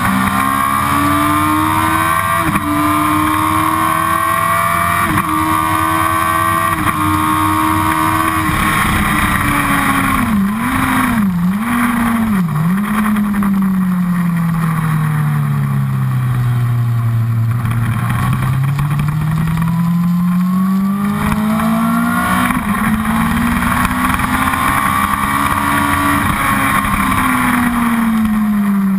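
Honda CBR1000RR inline-four engine at high revs, with wind rush. About ten seconds in the revs drop in three quick steps as it shifts down for a corner. The revs then sink slowly and climb steadily as it accelerates again, falling away near the end.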